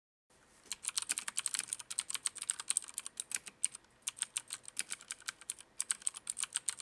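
Typing on a Filco Majestouch Ninja mechanical keyboard with Cherry MX switches: a quick run of key clicks, with two short pauses.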